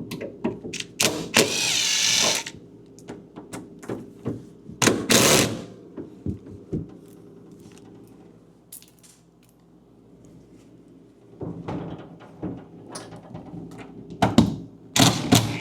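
Power drill-driver running in short bursts, backing screws out of a refrigerator hinge bracket, with clicks and knocks from handling the parts in between.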